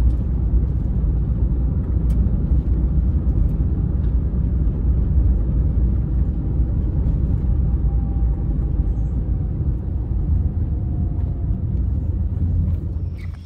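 Steady low rumble of a moving car's road and engine noise, heard from inside the cabin; it stops abruptly near the end.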